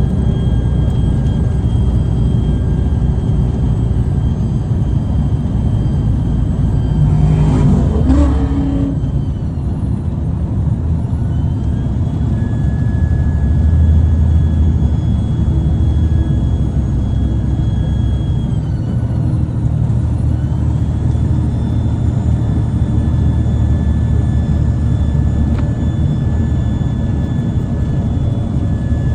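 Truck diesel engine running with a steady, high turbocharger whistle that dips and rises again twice as the throttle changes. About eight seconds in, a V8 car passes close by.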